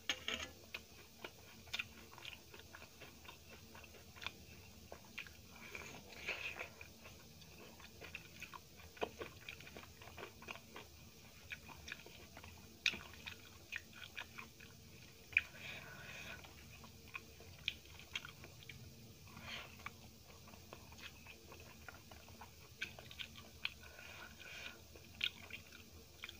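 Close-up chewing of rice and aubergine curry eaten by hand, with many short, irregular wet clicks of the mouth. Fingers mix rice on a steel plate between bites.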